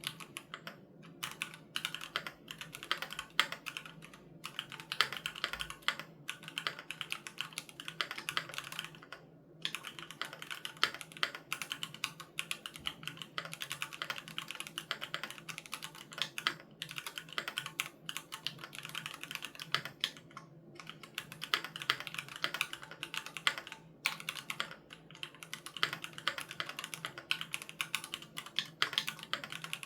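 Continuous fast typing on a Keychron Q3 Knob mechanical keyboard with Gateron G Pro Red linear switches: dense runs of keystroke clicks, broken by a few brief pauses.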